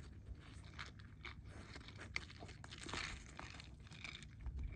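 Golden retriever chewing on a stick: irregular crunches and sharp clicks of teeth on wood.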